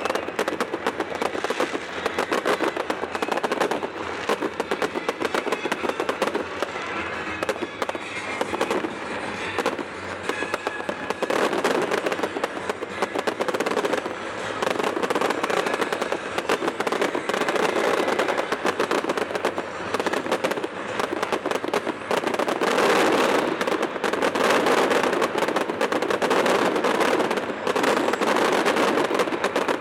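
Fireworks finale: a dense, rapid barrage of bangs and crackles, growing louder about two-thirds of the way through, with music playing underneath.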